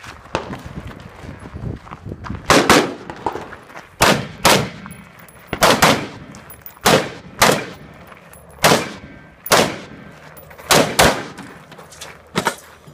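Walther PPQ 5-inch pistol firing a string of about a dozen shots, mostly in quick pairs a few tenths of a second apart, with a pause of a second or so between pairs.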